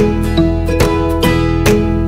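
Background music of plucked strings, in the manner of an acoustic guitar, with a steady beat of about two notes a second.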